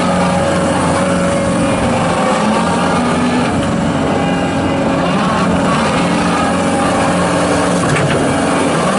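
John Deere 331G compact track loader's diesel engine running steadily at working revs, its pitch rising and falling a little as the machine is operated.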